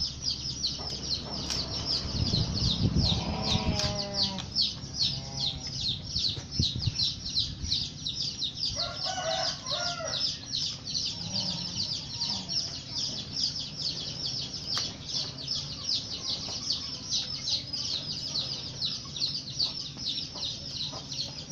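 Chickens clucking in short bursts, about three seconds in and again around nine seconds, over a continuous fast high-pitched pulsing in the background. Low rustles and knocks come from the banana-sheath boat and its bamboo sticks being handled.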